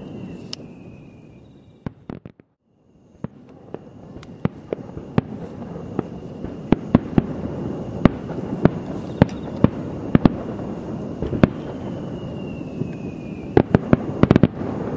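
Aerial fireworks shells bursting: a fading rumble of echoing bursts, then a series of sharp bangs and crackles over a building rumble, with a quick cluster of reports near the end. The sound drops out briefly about two seconds in.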